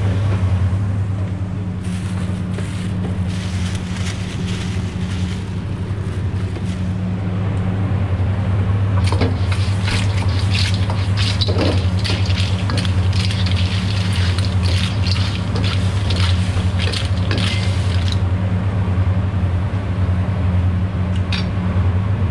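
Metal ladle scraping and clattering against a steel wok as striped clams are stir-fried, in two long spells with a short pause between, over a steady low hum from the wok stove.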